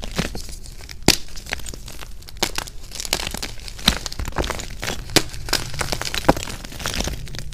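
Blocks of gym chalk crushed and crumbled by hand: dry crunching and crackling, with several sharper snaps as pieces break apart, the loudest about a second in and again around four, five and six seconds in.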